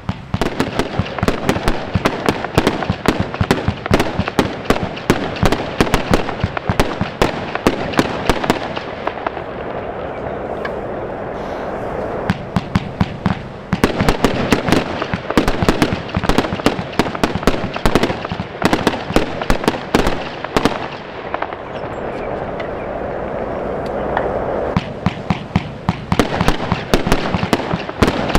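Lesli Big Blue Box, a 90-shot 25 mm fireworks cake, firing in quick succession: rapid launch thumps and star bursts over a steady hiss. Twice the shots thin out for a few seconds, about a third of the way in and again past the middle, then come fast again.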